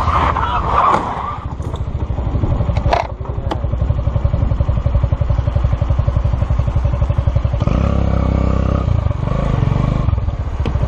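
Motorcycle engine running with a fast, even pulse, revving up about eight seconds in; a few sharp knocks sound in the first four seconds.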